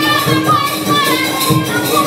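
A group of singers performing a traditional song with percussion keeping a steady beat of about two strokes a second.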